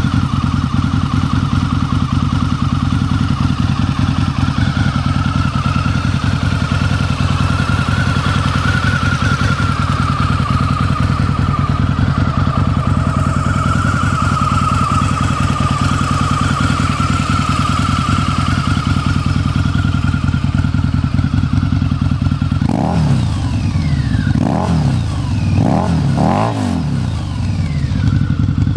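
2004 Harley-Davidson V-Rod's liquid-cooled Revolution V-twin idling steadily through Screamin' Eagle exhaust, then revved up and down in several quick blips near the end.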